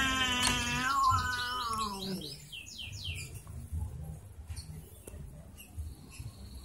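A cat's long, wavering yowl that slides down in pitch and fades out about two seconds in: a warning call at a rival cat in a standoff. Right after it comes a quick run of high bird chirps.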